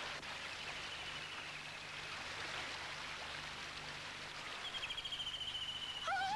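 Steady rush of running river water, with a faint high trill twice, once about half a second in and again near the end. A rising wailing tone starts just before the end.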